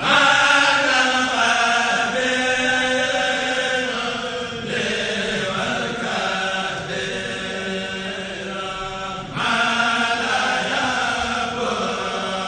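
A kourel, a group of men's voices chanting a Mouride khassida together over microphones. Each new phrase enters loudly, about every four to five seconds.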